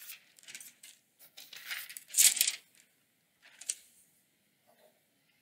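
A few short rustles and light clinks of small objects and paper being handled on a desk, the loudest about two seconds in.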